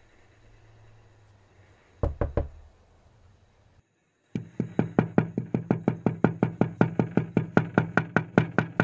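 A few sharp knocks about two seconds in, then, after a brief dropout, rapid evenly spaced knocking at about four to five strikes a second.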